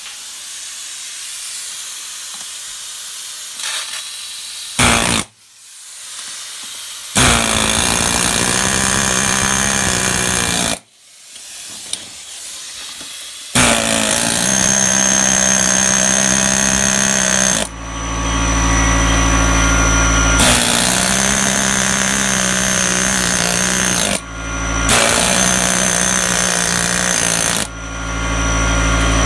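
Pneumatic air hammer chisel firing in about four bursts of three to four seconds each, hammering a chisel bit into a brick, after a steady hiss of air at the start. From about halfway, the steady hum of an air compressor motor runs underneath and comes up in the gaps between bursts.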